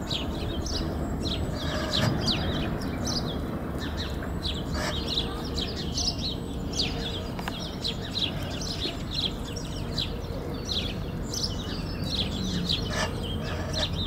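Small birds chirping rapidly and continuously in short, high, falling chirps, over a steady low background rumble.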